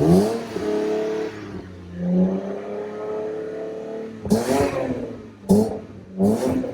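Toyota 2JZ-GE inline-six engine being revved from idle in about five throttle blips, the last three short and quick. The revs are used to check that the new alternator charges without overcharging.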